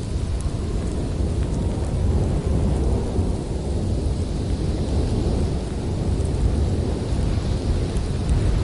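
Blizzard wind blowing hard and gusting, a steady low rumble that swells and eases slightly.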